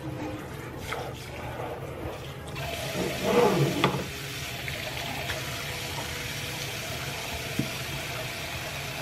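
Tap water running into a bath, coming on strongly a couple of seconds in and then flowing steadily, with a brief louder splash about a second after it starts.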